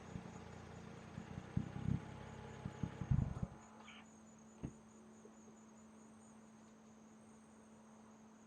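Crickets chirping steadily and faintly. A low engine rumble with a few thumps dies away about three and a half seconds in.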